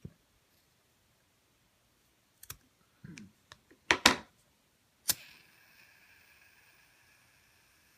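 Scissors snipping paracord: a few sharp clicks and snips, the loudest about four seconds in. Then a lighter is clicked about five seconds in, and its flame hisses steadily, melting the cut cord ends to fuse them.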